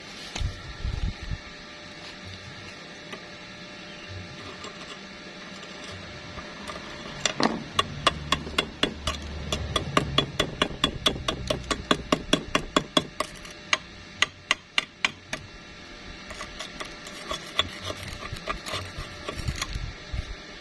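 A hammer striking metal in a fast, even run of taps, about five a second, for roughly eight seconds, with a few scattered knocks before and after.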